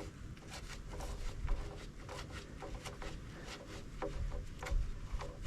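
Scattered light clicks and small knocks of hand tools and metal parts being handled, a couple with a brief metallic ring about four seconds in, over a low rumble.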